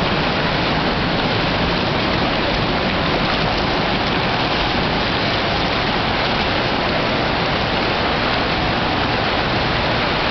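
Steady rushing noise of an indoor swimming pool, like running water, even in level throughout with no separate splashes standing out.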